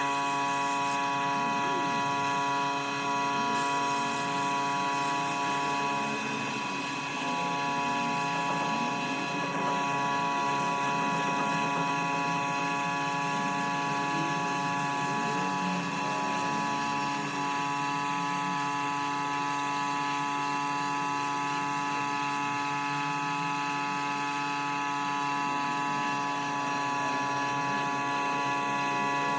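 A power tool's motor starts abruptly and runs at a steady speed, giving a constant whine.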